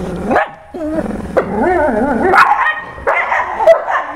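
Dogs growling and barking in a playful tug-of-war over a rubber toy. A few short, sharp barks break through the wavering growls.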